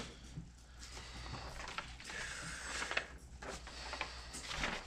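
A folded sheet of paper rustling as it is handled and turned over, with a few light taps.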